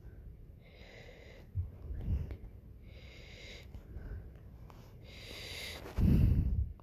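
A person breathing audibly close to the microphone: three hissing breaths about two seconds apart, then a louder, low puff near the end.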